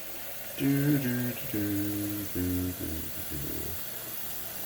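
A man humming a few short notes of a tune, each held at a steady pitch, over a faint steady hiss of running tap water.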